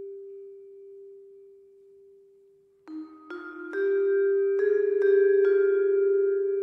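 Mallet-percussion music with a vibraphone-like ring. One held note fades out over the first three seconds. Then several notes are struck in quick succession and ring on together with a slow wavering shimmer.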